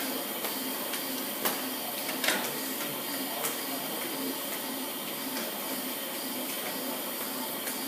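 Steady machine noise of a workshop, with a few light clicks of metal parts being handled.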